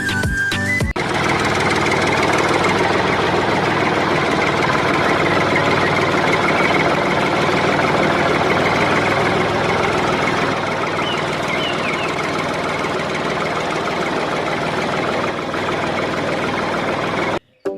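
A motor running steadily, with a dense whirring noise, that cuts off suddenly near the end.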